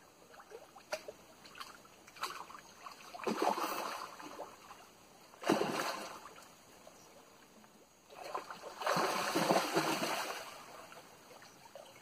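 A hooked golden dorado splashing and thrashing at the water's surface while being played on a rod: three splashes, one about three seconds in, a sharp one about halfway through and a longer one near the end, with a few faint ticks before them.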